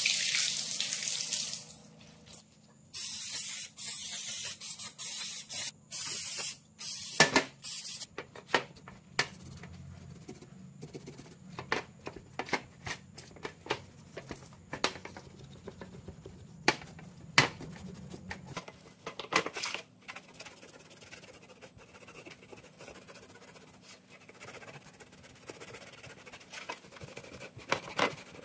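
Water spraying in stop-start bursts over the plastic drill housing halves for the first several seconds. Then hard plastic parts click and knock against a stainless steel tray, with faint cloth rubbing as they are wiped.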